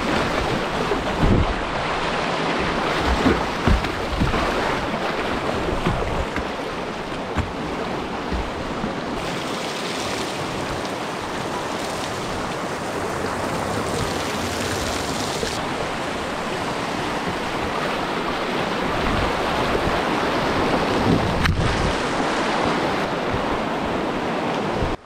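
Whitewater river rapids rushing around a kayak, a steady loud rush of water with wind buffeting the microphone. A few low thumps in the first few seconds and a single sharp click near the end.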